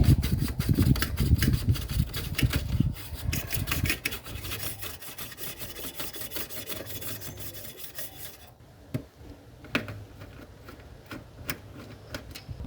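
Quick back-and-forth rubbing strokes on a hard surface, several a second, for about eight seconds, then stopping, followed by a few scattered clicks.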